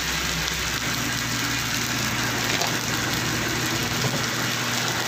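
Fried rice sizzling in a wok on a stove burner, a steady hiss with a low hum underneath.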